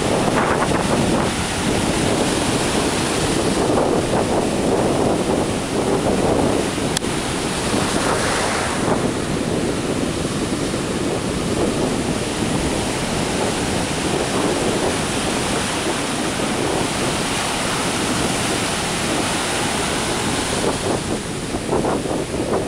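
Ocean surf breaking and washing in, a steady rush of white water that swells and eases every few seconds, with wind buffeting the microphone.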